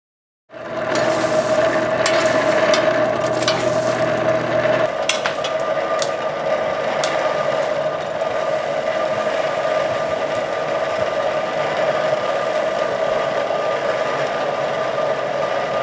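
Coal forge fire with its air blower running: a steady rushing roar with a constant whine, a lower hum that stops about five seconds in, and a few sharp crackles.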